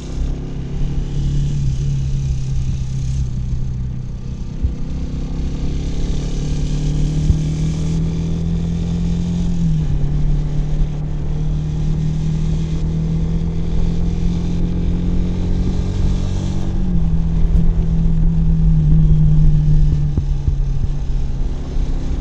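Kawasaki W175's single-cylinder four-stroke engine pulling under load while riding, its pitch climbing steadily and dropping abruptly with two upshifts, about halfway through and again about three-quarters through.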